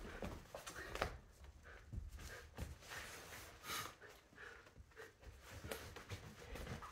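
Faint rustling of socks and clothing with soft scattered bumps as two people sit on a bed pulling socks on.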